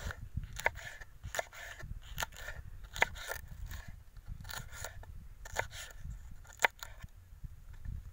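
Kitchen knife slicing green chillies on a wooden board: a run of short crisp cuts, about two a second at an uneven pace, each one tapping the board.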